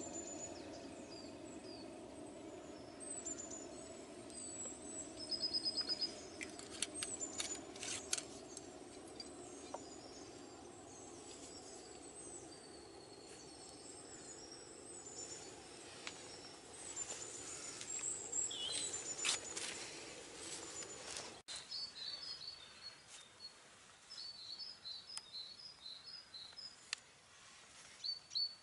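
Wild birds singing and chirping over a steady low rushing noise, with a few sharp clicks. The rushing stops abruptly about three quarters of the way through, after which a bird repeats a short high chirp over quieter surroundings.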